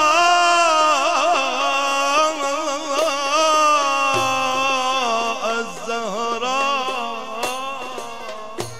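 A male munshid singing Egyptian Sufi inshad (a tawassul), holding a long, ornamented melismatic line with quick vibrato that slowly falls in pitch and fades toward the end.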